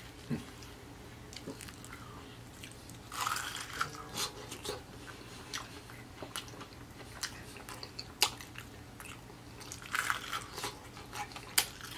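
Crunching and chewing of homemade fried chicken, the crisp breaded skin of a drumstick. There are two bouts of crisp bites, about three seconds in and again near ten seconds, with scattered single crackles between.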